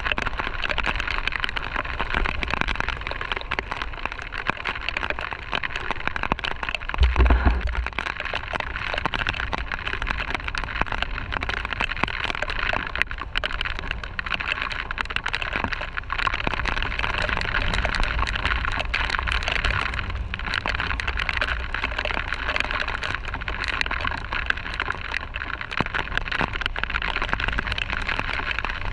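Heavy rain pattering steadily on a motorcycle-mounted camera, over a low rumble from the motorcycle and the wind, with one brief, loud low thump about seven seconds in.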